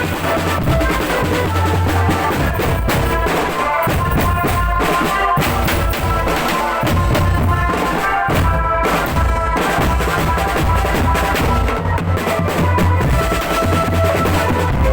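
Drum band playing: bass drums and snare drums beating a dense rhythm under a steady melody line.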